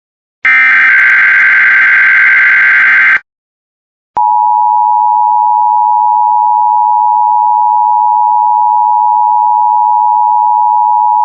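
Emergency Alert System test: a loud buzzing SAME data-header burst ends about three seconds in. After a second's pause, the EAS two-tone attention signal starts and holds one steady, unwavering chord.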